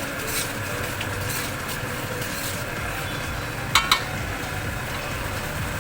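Stirring in a large metal kadai, with potatoes frying and sizzling steadily in onion-tomato masala. A sharp metallic clink comes just under four seconds in.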